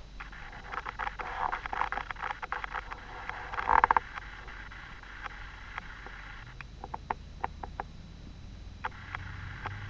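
Scattered small clicks and taps with a brief louder rustle about four seconds in, then the low rumble of a car passing outside, starting a little past halfway.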